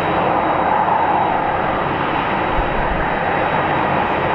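Airbus A380's four Rolls-Royce Trent 900 jet engines at takeoff climb power: a steady jet roar as the airliner climbs away.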